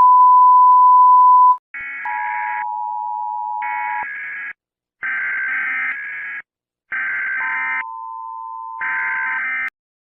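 Emergency alert system tones: a loud steady beep for about a second and a half, then five short bursts of a higher buzzing tone alternating with a lower steady tone. They stop abruptly just before the end.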